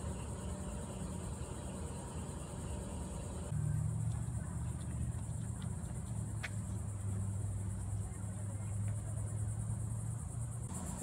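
Steady high insect chirring with a low, steady rumble underneath; the rumble gets louder about three and a half seconds in.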